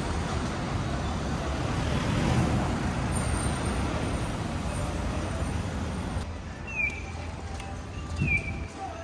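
Street traffic at a junction: trucks and vans passing, a steady rumble of engines and tyres, loudest about two seconds in. About six seconds in it gives way to quieter surroundings with a short descending chirp repeating about every second and a half.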